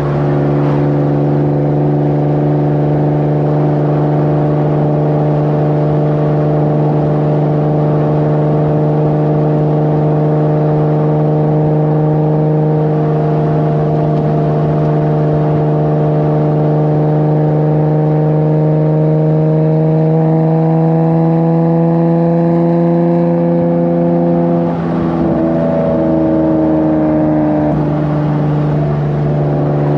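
Nissan 370Z's V6 engine and exhaust, breathing through aftermarket PPE headers, running steadily while driving. The pitch holds steady at first, then climbs slowly as the car gently accelerates. About 25 seconds in it drops suddenly, with a short dip in loudness as the car shifts up a gear, then starts to climb again.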